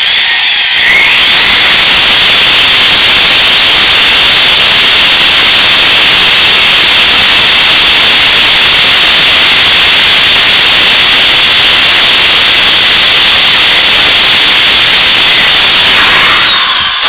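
Power drill running steadily under load as it bores a pilot hole through the metal flagpole tube of a homemade alcohol stove; loud and even, spinning up about half a second in and winding down just before the end.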